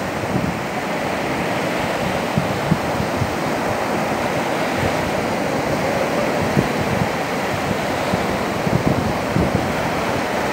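Small sea waves breaking and surf washing up over wet sand, a steady rush.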